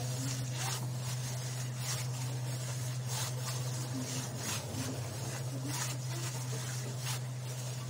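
A plastic-bag-gloved hand kneading oily homemade playdough in a glass bowl: irregular soft crinkles and squishes every half second to a second, over a steady low hum.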